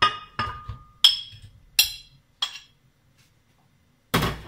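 Peeled peach pieces tipped from a bowl into a glass blender jar, knocking and clinking against the glass about five times over two and a half seconds, then a louder knock near the end.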